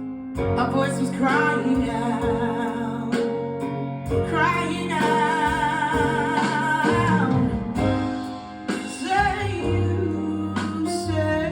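A song: voices singing long, wavering notes over a steady bass and instrumental backing.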